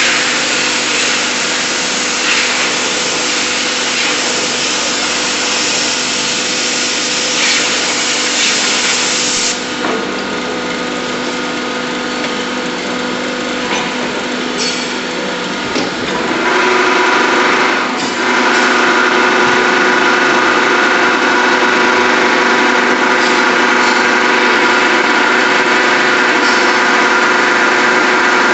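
Compressed-air spray gun hissing loudly at the open die of a die casting machine, stopping about a third of the way in. From about halfway the machine's hydraulics run louder and steady with several even tones as the die closes.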